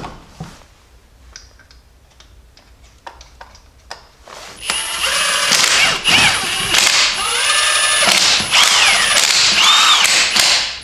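A few light clicks, then from about four seconds in a Milwaukee M18 Fuel cordless impact wrench runs in several short trigger bursts, its motor whine rising and falling, as it spins lug nuts onto the wheel studs.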